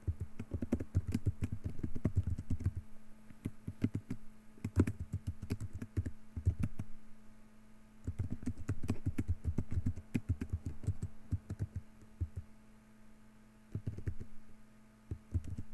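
Computer keyboard typing in quick runs of keystrokes broken by short pauses, thinning to a few scattered key presses near the end, over a faint steady low hum.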